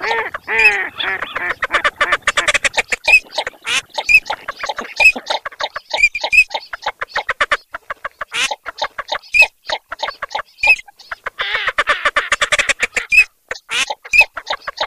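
Mixed recording of Eurasian teal and northern shoveler calls: dense runs of short clucking and rasping quacks, with a short high whistled note repeating about once a second. Louder drawn-out rasping calls come near the start and again about three-quarters of the way through.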